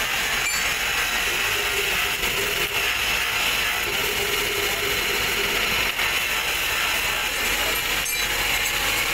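Belt-driven grinding wheel running steadily, with a small steel bearing part ground against it at the start, throwing sparks.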